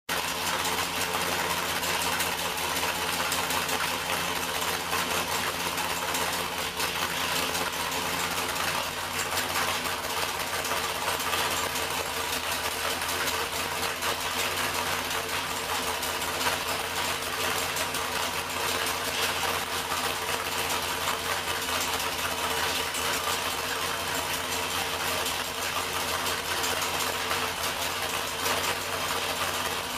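A 496 cubic-inch big-block Chevrolet V8 with a solid roller cam, running on an engine dyno and idling steadily.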